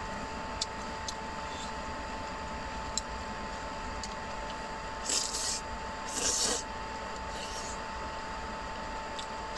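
Someone eating noodles with chopsticks from a metal tray: a few light clicks early on, then two short hissing slurps about five and six seconds in, with a weaker one soon after.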